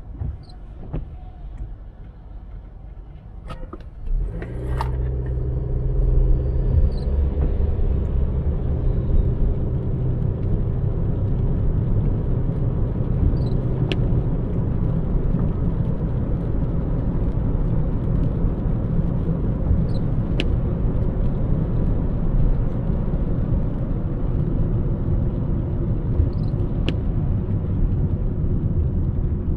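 Car driving on a city road: a steady low rumble of engine and tyres that grows louder about four seconds in, with a faint tick every six or seven seconds.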